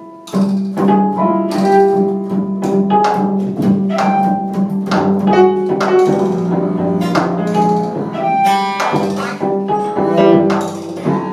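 Free-improvised ensemble music: cello and double bass bowing held low notes, with sharp strikes on a prepared snare drum. It swells in loudness just after the start.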